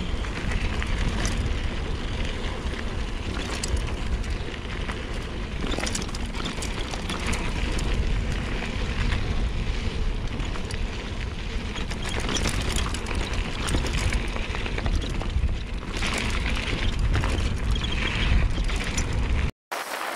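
Wind buffeting the microphone over the tyres of a mountain bike rolling fast down a dry dirt trail, with scattered rattles and knocks as the bike goes over bumps. The sound cuts out for a moment near the end.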